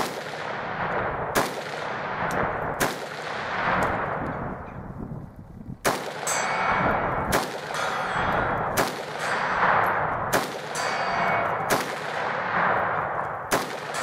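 Rifle shots fired in a steady string, about nine, roughly one every second and a half with one longer pause near the middle, each followed by a long rolling echo.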